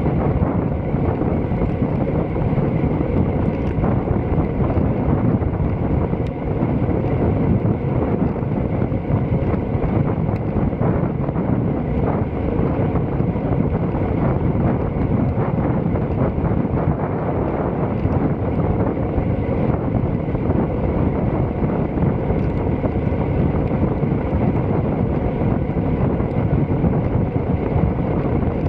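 Steady wind rush buffeting the microphone of a camera riding on a moving bicycle.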